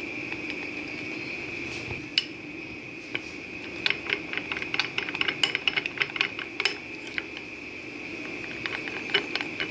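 Metal spoon stirring cocoa powder and water into a paste in a small glass bowl, ticking and clinking against the glass in quick runs, busiest from a little before halfway, over a steady background whine.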